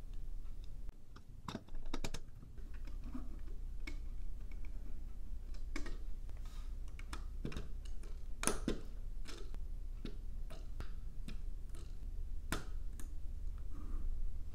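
Hard LEGO plastic pieces clicking and snapping as the brick-built nutcracker head is handled and pressed onto the body. The clicks are irregular, a dozen or so, the loudest a little past the middle.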